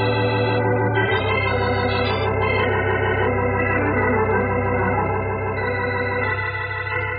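Organ music bridge: held chords over a steady low note, changing about a second in and again near six seconds, slowly getting quieter toward the end.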